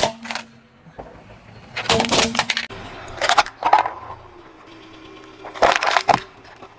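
Car tyre rolling over and crushing small objects, a plastic toy among them: sharp cracking and crunching in several separate bursts, the first about two seconds in and the last near the end.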